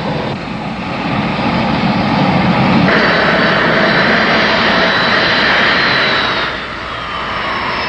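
Boeing 747-100's Pratt & Whitney JT9D turbofan engines running at power during a ground run-up, a steady jet rush with a high whine. The whine grows louder about three seconds in and eases back after about six and a half seconds.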